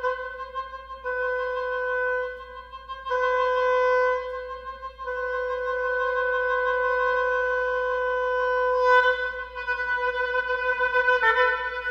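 Oboe in a contemporary piece for oboe and electronic tape, holding long notes on one pitch with short breaks between them, and a fast pulsing on that same note near the start and again near the end.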